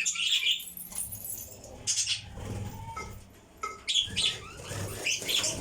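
Pet lovebirds chirping in short, high calls: a few near the start, one about two seconds in, and a quicker run of chirps near the end.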